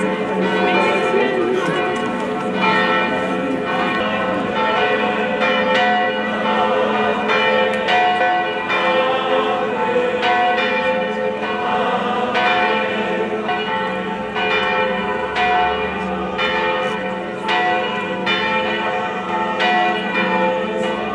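Church bells ringing, with new strikes coming about every second over long, overlapping ringing tones.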